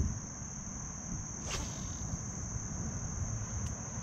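Steady high-pitched chirring of an insect chorus, with a low rumble underneath and a single sharp click about a second and a half in.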